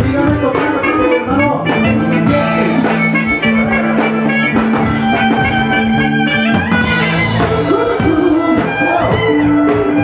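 Live band playing: drum kit and percussion, keyboard and a bowed electric violin, with long held low notes through the middle.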